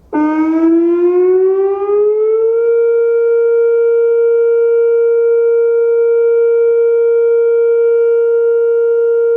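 Whelen WPS 2805 electronic outdoor warning siren sounding its steady alert tone. It starts suddenly, rises in pitch for about two and a half seconds, then holds one loud, steady tone. The siren is malfunctioning and plays only its alert and attack tones, not the voice message and air horn it is set for.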